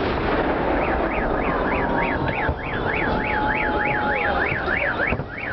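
A car alarm wailing, its tone sweeping up and down about three times a second; it starts about a second in and stops near the end. Beneath it is a steady wash of fireworks and crowd noise.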